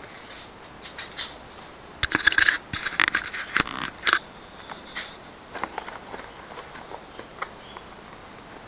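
A stiff homemade paper canopy being handled and fitted against an RC helicopter's frame: a cluster of crackling, scraping clicks a couple of seconds in, then scattered lighter clicks and rubs.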